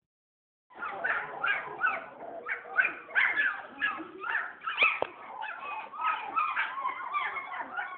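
A litter of German Shepherd puppies, about two weeks old, whimpering and yelping over one another in many short high cries, starting just under a second in.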